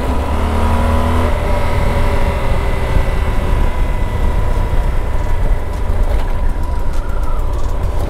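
Yamaha Super Ténéré 1200 motorcycle engine running at road speed under a steady rush of wind noise on the helmet-mounted microphone.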